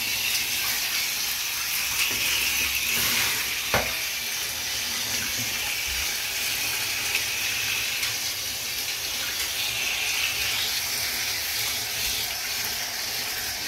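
Water spraying steadily from a handheld brush shower head onto a dog's wet coat and the bathtub, making an even hiss. A single short knock sounds about four seconds in.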